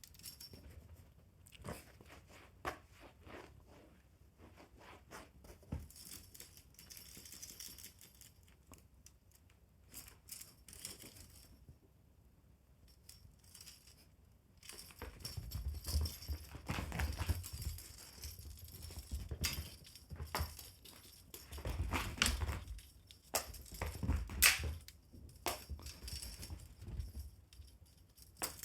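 Pets playing with a fishing-rod toy: irregular rustling, crinkling and clicking, with thumps and sharper clicks growing busier and louder from about halfway through.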